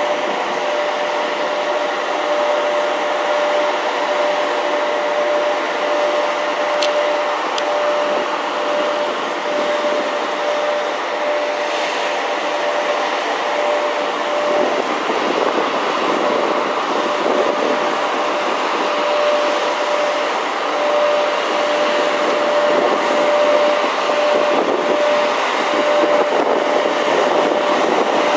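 EP1M electric locomotive moving slowly, its cooling blowers giving a steady whirring with a steady hum tone that drops out about halfway through and then returns.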